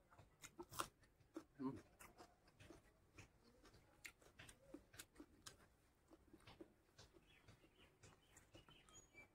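Faint close-up mouth sounds of a person eating rice and curry by hand: scattered soft clicks and smacks of chewing and lips, a few every second.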